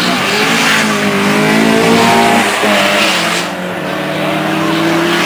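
Two drag-race cars, a Honda CRX and a Mk1 VW Golf, launching off the start line and accelerating hard down the strip. Their engine notes rise, drop briefly at a gear change a little past two seconds in, then climb again.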